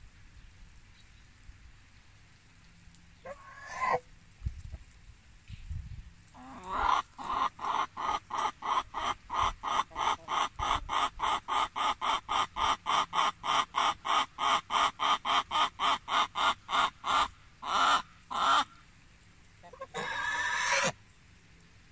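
Chicken cackling: a fast, even run of clucks, about three or four a second, for some ten seconds. It ends in a few longer drawn-out calls, with a single call a few seconds before the run.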